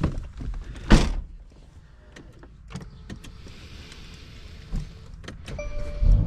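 Inside a Mercedes-AMG C43: scattered clicks and a loud knock about a second in, then a steady electronic chime near the end as the engine's low rumble comes up.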